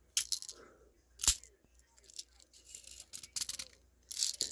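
Small clicks and light rattles from handling a spring airsoft pistol's BB-loaded magazine, with one sharper click about a second in.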